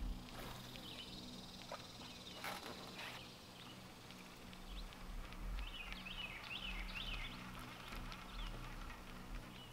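Quiet riverside ambience: small birds chirping in the trees, most of them in the second half. A thin high buzz runs through the first three seconds or so, with a few sharp clicks inside it.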